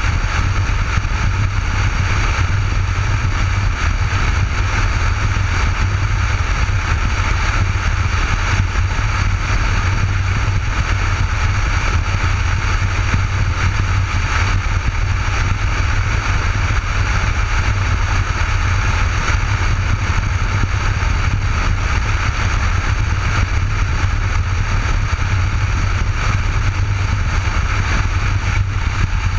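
Cruiser motorcycle running at a steady road speed, its engine a low rumble under steady wind rush, heard from a helmet-mounted camera. No gear changes or revving.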